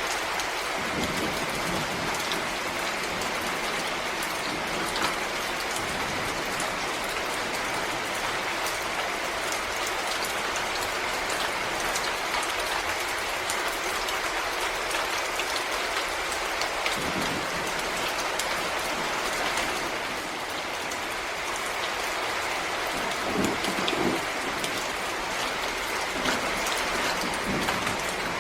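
Steady rain falling in a forest, an even hiss with a dense patter of individual drops and a few heavier drips landing about a second in and around two-thirds and five-sixths of the way through.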